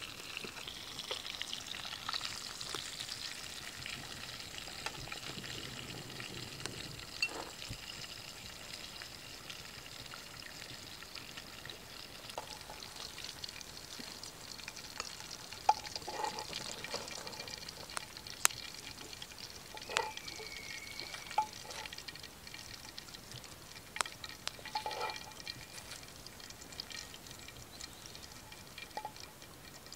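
Fish pieces sizzling in oil in a frying pan, with several sharp clicks in the second half as metal tongs strike the pan while lifting the fried pieces out.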